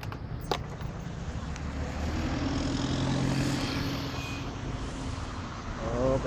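Street traffic: a motor vehicle's engine passes close by, swelling from about two seconds in and fading after four. A sharp click comes about half a second in.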